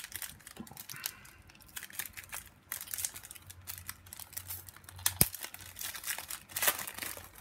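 Wrapper of a baseball card pack crinkling and tearing as it is opened by hand, with one sharp tick about five seconds in.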